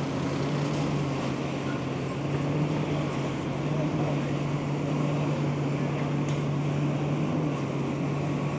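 Komatsu hydraulic excavator's diesel engine running steadily with a constant low hum, over a broad wash of street and site noise.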